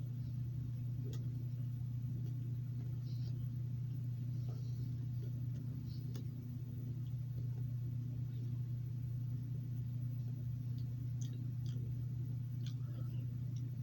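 A steady low hum, with faint scattered clicks and mouth noises from someone chewing bread, a few more of them near the end.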